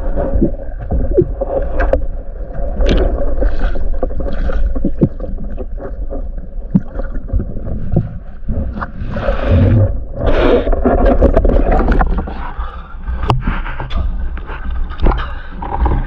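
Muffled water sound heard by an underwater camera: water gurgling and rushing past with scattered knocks and scrapes of the speargun and gear as a spearfisher swims. Louder splashing and water noise come about nine to eleven seconds in as he nears the surface and climbs out.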